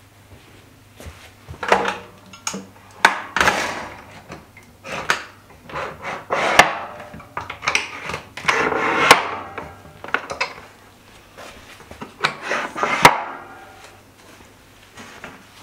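Wooden kotatsu table being handled and tipped onto its side: irregular wooden knocks, rubbing and scraping, with three sharp clacks about six, nine and thirteen seconds in.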